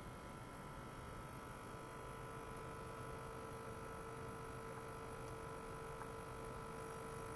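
Faint steady electrical hum and whine from a small ultrasonic cleaner and its test electronics, with a low hum and a few steady high tones. A lower steady tone joins about two seconds in.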